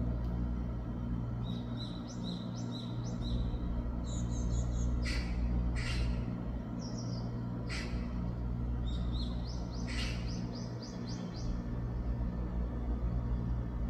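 Fledgling Japanese tit (Parus minor) calling: runs of quick, high chirps, broken by several louder, sharper single calls, about four of them spread through the middle. A steady low hum runs underneath.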